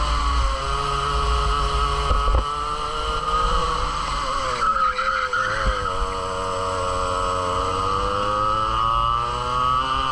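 Two-stroke racing kart engine heard onboard. Its note falls as the kart slows into a tight corner, with a short scrub of tyre noise around halfway, then climbs steadily as the kart accelerates away.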